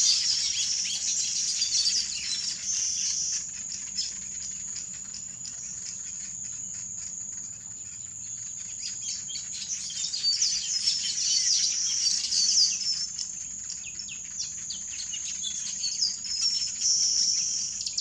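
Village weavers chattering in a colony: many overlapping high, buzzy chirps and short calls over a continuous high-pitched buzz.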